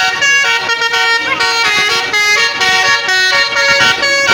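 Basuri (telolet) musical bus horn playing a tune: a quick run of loud, stepped horn notes changing pitch several times a second.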